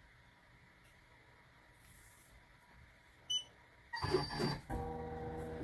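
Quiet room tone, then a single short electronic beep from the BAi Mirror 1501 embroidery machine's control panel about three seconds in, as the design trace is started. About four seconds in, a louder sound sets in and carries on with steady held tones.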